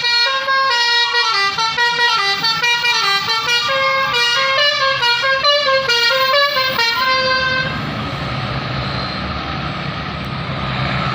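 A bus's telolet basuri musical horn playing a fast melody of short, stepping notes. It stops about eight seconds in, leaving steady engine and road noise.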